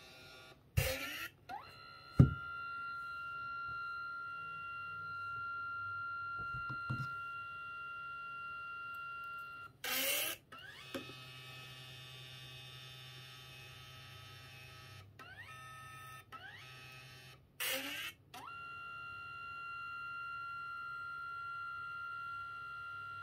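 Samsung Pricker portable photo printer printing colour by colour: its feed motor runs with a steady whine as the photo paper passes through, broken by short, louder whirs about a second in, midway and about three-quarters through. There is one sharp click about two seconds in.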